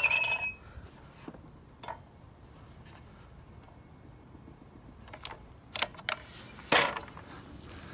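Metabo HPT sliding compound miter saw worked by hand with no power: a short squeak and click at the start, then a few scattered clicks and knocks as the saw head is lowered and the trigger pressed. The motor never starts because the saw is not plugged in.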